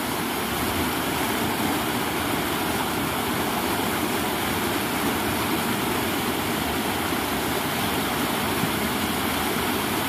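Steady rushing of whitewater rapids pouring over a rock ledge in a river.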